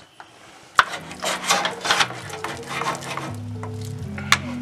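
Background music comes in about two seconds in, over the scraping and clatter of a utensil stirring food in a pan. There is one sharp knock about a second in.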